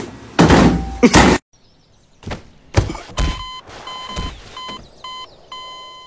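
A brief loud noisy burst, then two thuds a second or so later as something falls to the floor. Then a run of buzzy electronic beeps at one pitch, uneven in length, like an alarm clock going off.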